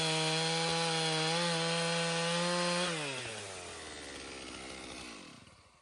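Portable bandsaw sawmill's engine running at a steady high speed. About three seconds in it winds down, falling in pitch, and dies away to silence just before the end, as the mill is shut down.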